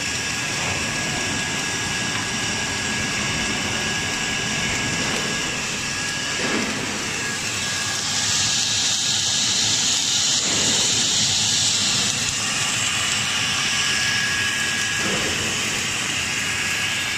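Welding equipment running: a steady hiss with a thin, constant high whine, growing a little louder and brighter about halfway through.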